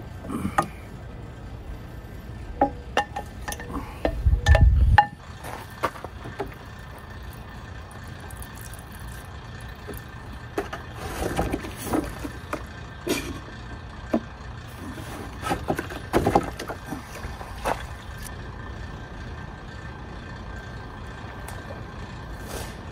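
Metal fork clinking and scraping in a stainless steel pan, with a brief low rumble about four seconds in; later, water poured from a plastic jug into the pan and sloshed around to rinse it out.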